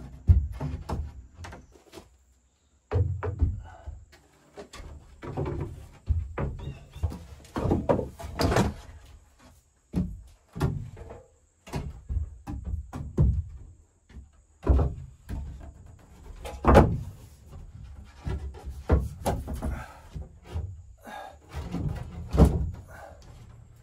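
Wooden ceiling planks being pushed up and fastened overhead: an irregular run of wooden knocks and thuds, with a short break about two seconds in.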